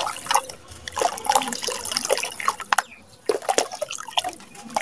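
Dry sand-cement crumbling between the fingers and showering into a bowl of water, the grains falling in with a dense patter of small splashes and drips. There is a brief lull about three seconds in.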